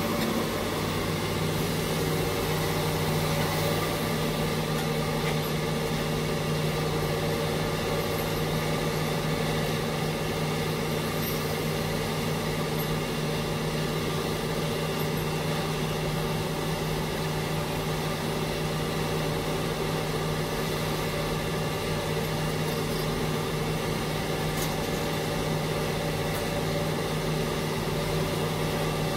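Heavy-equipment diesel engine running at a steady speed with a constant hum and no revving.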